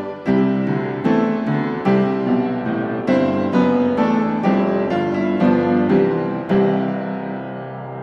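Background piano music: single notes and chords struck at a slow, gentle pace, ending on a held chord that fades away over the last second or so.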